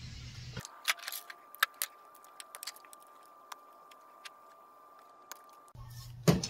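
Scattered light clicks and taps of small tools and wire being handled on a workbench, over a faint steady high tone, with a louder knock near the end.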